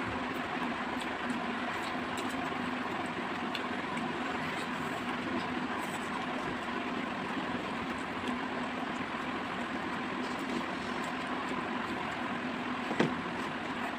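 A steady background hum and hiss that does not change, with a single sharp click near the end.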